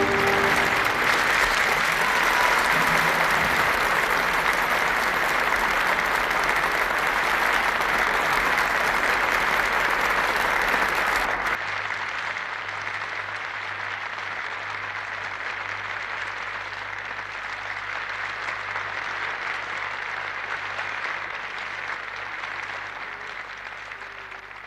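Studio audience applauding. About halfway through the sound abruptly turns muffled and quieter, as applause heard through a television set's speaker in a room, and it fades out near the end.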